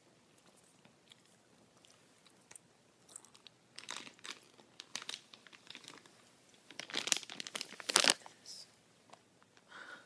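A plastic candy bag crinkled close to the microphone, crackling in short spells that are loudest about seven to eight seconds in.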